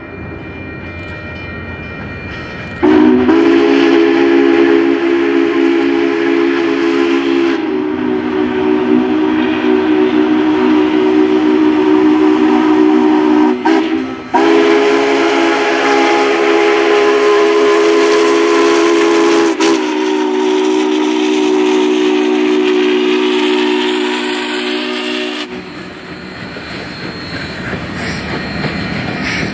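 Union Pacific 844's steam whistle, a 4-8-4 Northern's chime whistle, blown in long held blasts: sounding softly at first, much louder from about three seconds in, with a brief break around halfway. It stops a few seconds before the end, leaving the rolling noise of the passing train.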